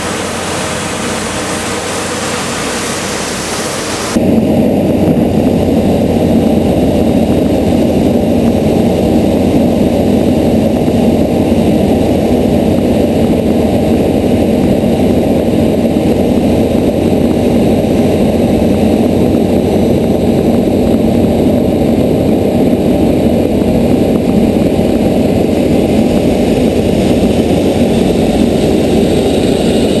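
Steady rush of water from the Mk8 airport fire vehicles' water cannons, mixed with the running jet engines of a taxiing Airbus A380. About four seconds in the sound cuts to a louder, muffled, low rush, heard from close under the spray.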